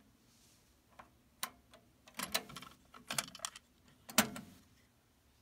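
Yamaha KX-1200U cassette deck's front-panel keys and tape mechanism clicking: a series of short sharp clicks, the loudest about four seconds in, as the hand reaches to the cassette door.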